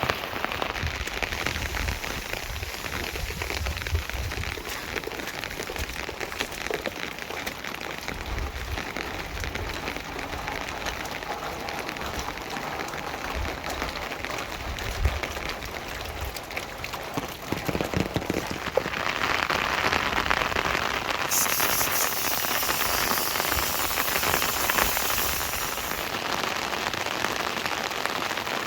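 Steady rain falling and pattering on surfaces; it grows louder about two-thirds of the way through.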